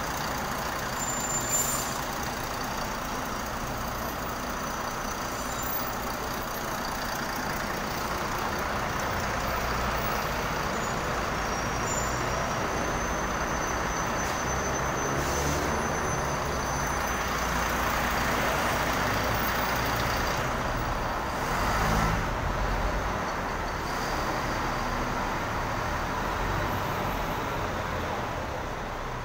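Diesel city buses, among them a Mercedes-Benz O405, running at a bus interchange: engines idling and pulling in and away in a steady rumble that swells in the middle and peaks briefly about 22 seconds in.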